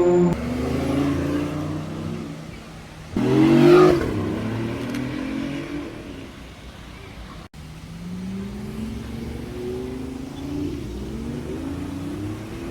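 Sports car engines revving and accelerating, with a sudden loud rev about three seconds in. After that come fainter engine notes that climb in pitch again and again as cars pull away.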